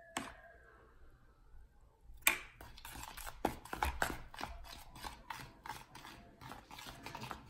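Wire whisk beating a buttermilk marinade in a bowl. After a single click at the start, a fast run of clicks begins about two seconds in, several a second, as the whisk strikes the sides of the bowl.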